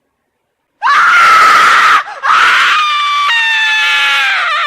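Loud electronic squeal with hiss from an FPV screen's audio, cutting in suddenly about a second in. It breaks off briefly, then returns with its pitch jumping to new tones and sliding slowly lower.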